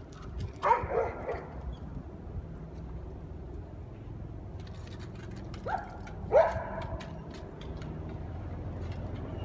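Dog barking: a quick run of barks about a second in, then two more around six seconds in, the last the loudest.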